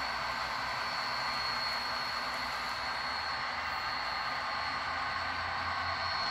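Model train of F40PH locomotives and passenger cars running along the layout track: a steady, even hiss of wheels and motors with a thin high tone held throughout.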